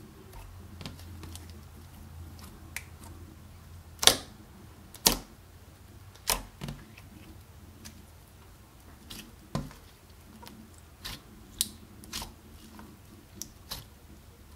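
Clear slime being kneaded and pressed by hand, giving off irregular sharp pops and clicks as trapped air bursts, about a dozen in all, over a faint low hum.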